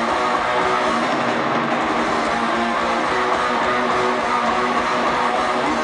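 Thrash metal band playing live: loud distorted electric guitars over bass and drums, with held notes, recorded from the audience in an arena.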